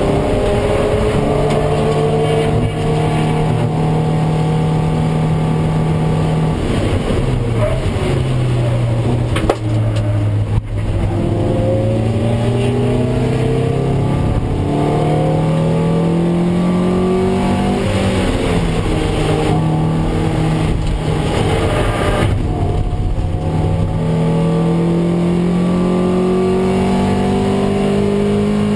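Toyota MR2 Roadster race car's 1.8-litre four-cylinder engine heard from inside the cockpit at racing speed. It rises in pitch as it accelerates, then drops back at gear changes and braking, again and again. There is one sharp knock about ten seconds in.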